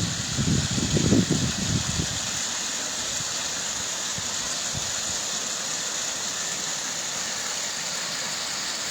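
Steady hiss of rain falling. Gusts of wind buffet the microphone with a low rumble during the first two seconds, then die away.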